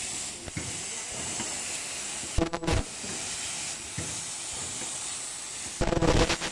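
Automatic foldable N95 mask-making machine running: a steady hiss, with a loud, short buzzing burst about every three seconds as the machine cycles, once about two and a half seconds in and again near the end.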